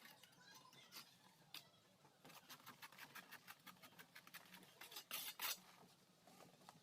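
A mason's trowel faintly scraping mortar and tapping bricks, in irregular short clicks and scrapes, with a louder cluster about five seconds in.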